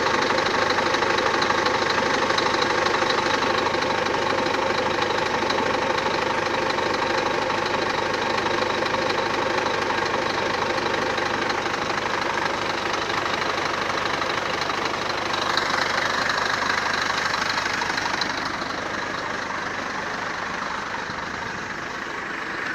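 Scania truck tractor's diesel engine idling steadily.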